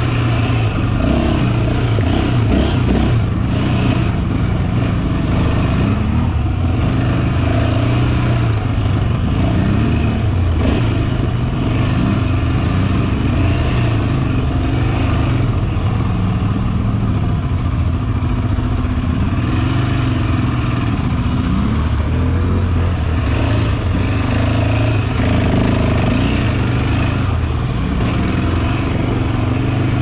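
Yamaha Raptor 700's single-cylinder four-stroke engine under way, its pitch rising and falling again and again as the throttle is opened and closed.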